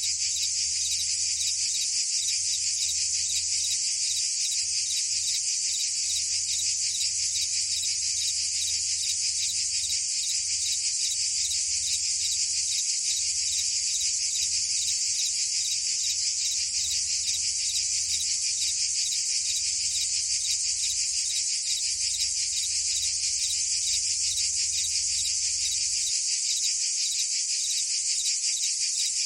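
Dense, continuous chorus of cicadas and crickets: a steady, high-pitched buzzing with a fast, even pulse.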